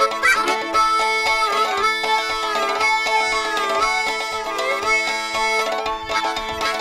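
Background old-time string band music, a fiddle playing a sliding melody over steadily picked banjo.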